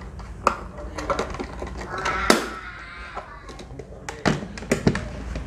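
Clicks and knocks of a plastic electronic scale being handled. The battery cover on its underside snaps shut about half a second in. A sharper knock comes a couple of seconds later, then a few light knocks near the end as the scale is turned over and set down on the table.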